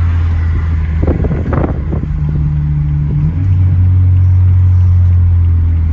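Twin-turbo BMW 4 Series heard from inside the cabin while cruising: a steady low engine and road drone that holds one pitch, briefly broken by scattered noise between about one and two seconds in.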